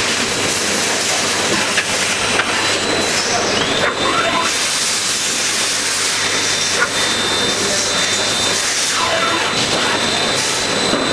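CNC machining center milling a metal block under flood coolant: a steady hiss of coolant spray and cutting, with a steady high machine whine.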